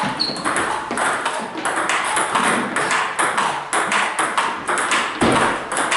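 Table tennis balls being hit in rallies: many quick, sharp clicks of ball on bat and table, overlapping irregularly as if from several tables at once.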